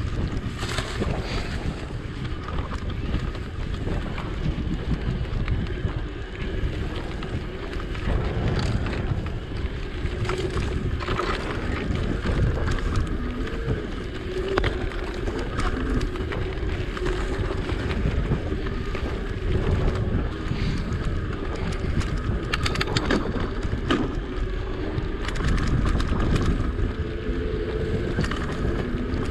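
Wind buffeting the microphone during a ride on an electric bicycle: a steady low rumble of rushing air, with scattered clicks and rattles.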